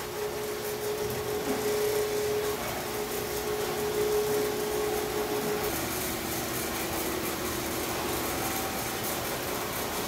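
Ellis metal-cutting band saw running: a steady machine hum with a hiss over it. The hum drops slightly in pitch about halfway through.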